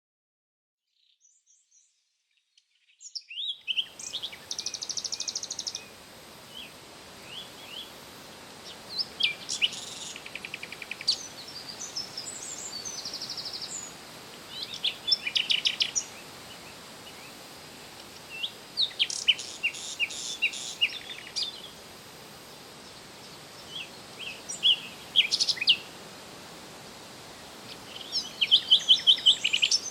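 Songbird singing: short phrases of high chirps and rapid trills every few seconds over a steady hiss of outdoor background noise, starting about three seconds in after silence.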